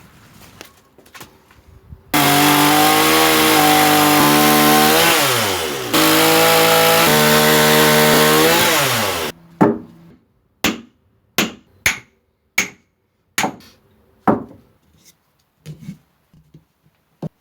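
A chainsaw running at full speed, cutting wood. Its pitch drops and it briefly cuts out about six seconds in, then it runs again and stops a little after nine seconds. About a dozen sharp, separate knocks follow, roughly one and a half a second.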